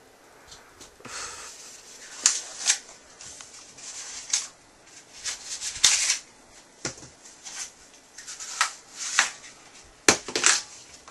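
Packaging being handled and unwrapped: irregular bursts of rustling and crinkling, with a few sharp snaps.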